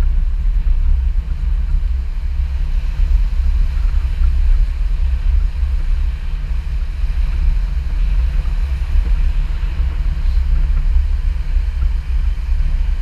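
Wind buffeting the microphone in a steady, gusting low rumble, with surf breaking under the pier as a fainter wash.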